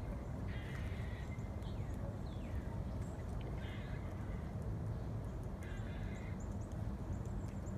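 Several short bird chirps, some falling in pitch, over a steady low outdoor rumble.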